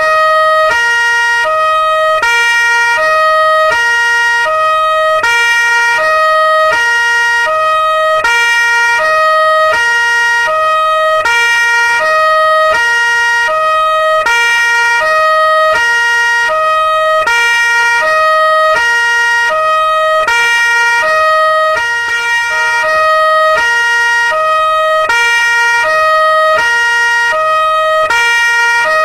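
Two-tone police siren alternating steadily between a lower and a higher note, about one full high-low cycle each second.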